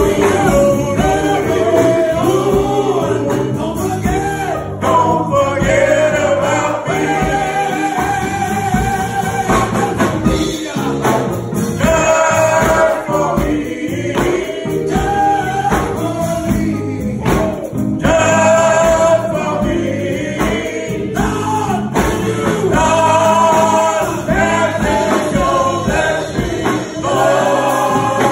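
A men's gospel vocal group singing together in harmony into microphones, continuous and loud.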